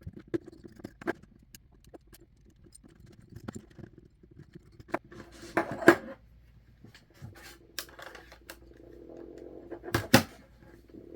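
Screws being put back into a TI-30Xa calculator's plastic case by hand: scattered clicks and scrapes of small screws, a screwdriver and the plastic housing. Louder knocks come about six seconds in and twice near the end, with a steadier rubbing stretch in between as a screw is turned.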